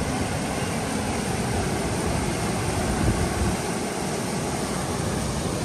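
Steady rush of a fast, turbulent river, with an uneven low rumble underneath.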